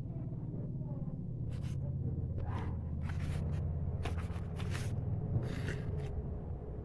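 A run of short scratching strokes over a steady low hum.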